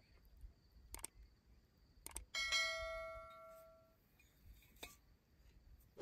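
Metal cookware struck once, giving a clear bell-like ring that fades over about a second and a half, with a few light clicks and taps before and after it.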